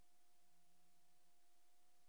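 Near silence: the blank track of a silent newsreel, a faint steady hiss with a thin, steady hum.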